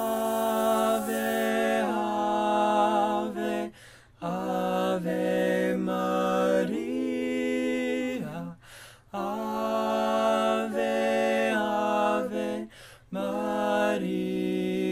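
A single unaccompanied voice singing a slow melody of long held notes, in four phrases with short breaths between them.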